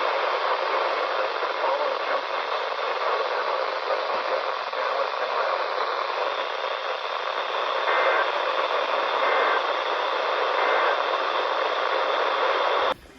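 Heavy radio static hiss from a weather radio receiver on a weak signal, with three faint brief beeps buried in it about two thirds of the way through. The static cuts off abruptly near the end.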